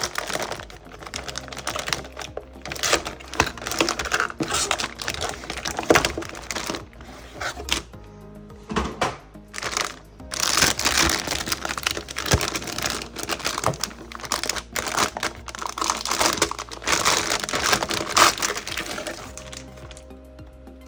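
Cardboard box and plastic packaging being opened and handled, in irregular bursts that stop shortly before the end, over background music.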